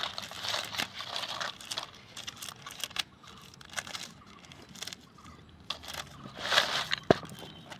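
Brittle sun-dried potato chips rustling and crackling as a hand stirs and lifts them in a plastic bowl, in a few separate bursts.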